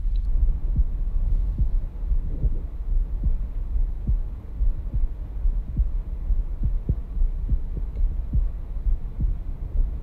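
Heart sounds heard at the pulmonary valve area through a Stemoscope Pro digital stethoscope: a steady lub-dub rhythm of paired short thumps over a constant low rumble.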